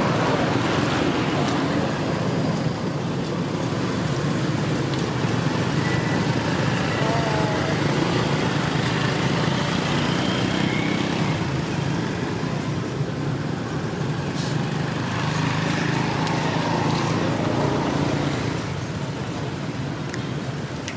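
Steady low rumble with a constant hiss, a continuous outdoor background noise with no distinct events.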